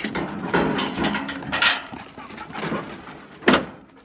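Hunting dogs moving about excitedly on a dirt track, with a jumble of scuffs, clicks and knocks and one sharp knock near the end.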